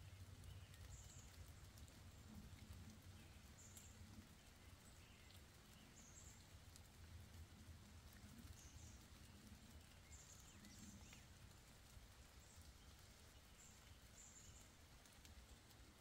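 Faint forest ambience: small birds give short, high chirps every second or two over a steady low rumble, with a few faint ticks.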